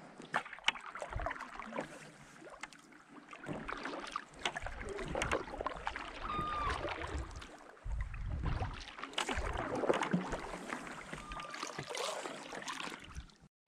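Kayak paddle strokes: the blades dip and splash in the water in an irregular rhythm as the kayak moves along, with water washing along the hull.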